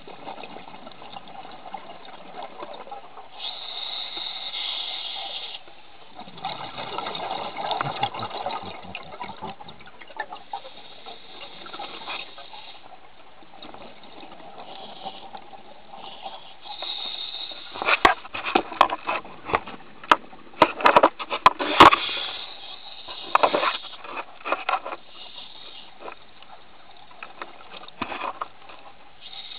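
Scuba regulator breathing heard underwater: hissing inhalations alternate with burbling exhaled bubbles. In the second half, a run of sharp clicks and knocks is the loudest part.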